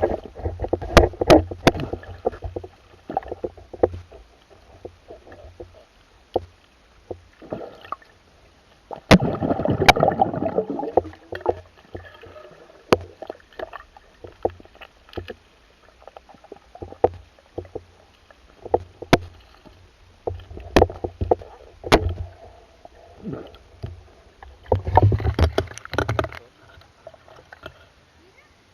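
Water sloshing and splashing close to the microphone, in irregular swells, with scattered sharp knocks and clicks throughout.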